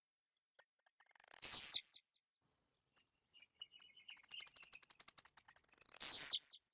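Blue-black grassquit (tiziu) singing two short song phrases. Each is a quick run of very high ticking notes ending in a loud, buzzy, downward-sliding note: the first about a second in, the second longer, from about 4 s to just past 6 s.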